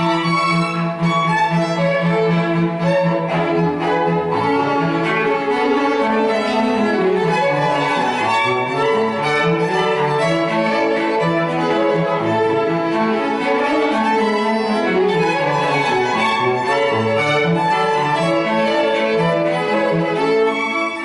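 String quartet of two violins, viola and cello playing classical-era concerto music. Held chords for the first few seconds give way to rising and falling runs.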